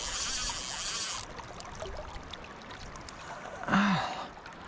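Fast river water rushing, with a loud hiss in the first second or so that cuts off suddenly. Near the end, a short breathy grunt from the angler.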